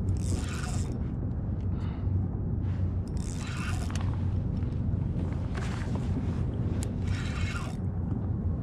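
Steady low wind rumble on an outdoor microphone, with a short hissy swish every second or two.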